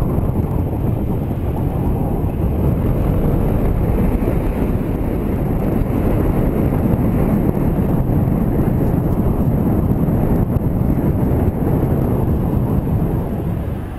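Riding noise from a camera on a moving motorcycle: steady low wind rumble on the microphone mixed with engine and road noise.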